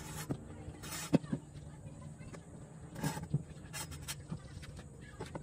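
Red pipe clamp's sliding jaw being moved along a 3/4-inch metal pipe, giving a few sharp clicks and knocks spread over the seconds, over a faint low hum.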